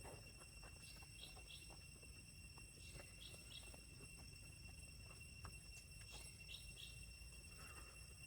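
Near silence: faint outdoor ambience with a thin, steady high whine and soft paired chirps every couple of seconds.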